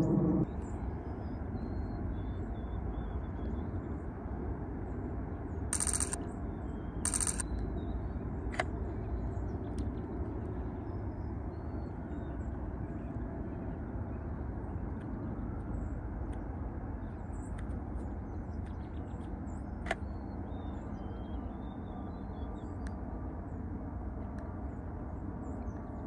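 Outdoor ambience: a steady low background rumble with faint, scattered high bird chirps. Two short bursts of hiss come about six and seven seconds in, and a couple of faint clicks come later.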